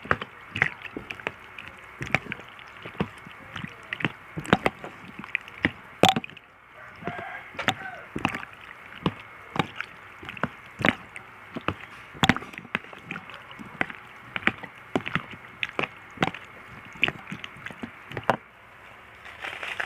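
Homemade fruit soup with nata de coco being stirred in its container: irregular clicks and knocks, several a second, over a steady hiss.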